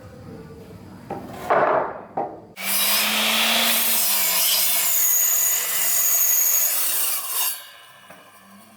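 A power tool running steadily on wood for about five seconds, starting a couple of seconds in and stopping near the end: a loud hiss over a low hum, after a few short scraping strokes.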